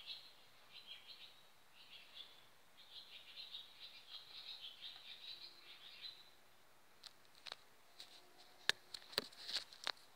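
Birds chirping in quick runs of short notes for the first six seconds. Then the phone is handled, giving a handful of sharp clicks and knocks, the loudest near the end.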